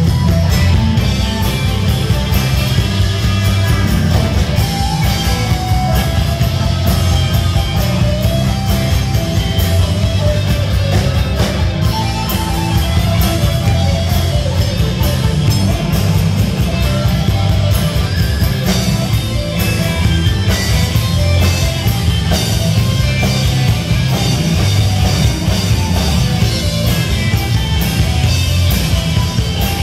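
Live rock music, loud and unbroken: an acoustic guitar strummed hard over a drum kit.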